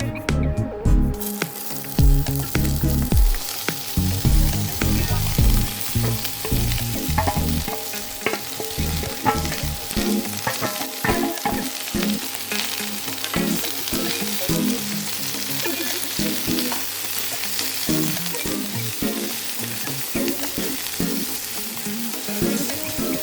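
Food sizzling as it fries in hot oil in a pan, with a utensil stirring and scraping against the pan in small irregular clicks.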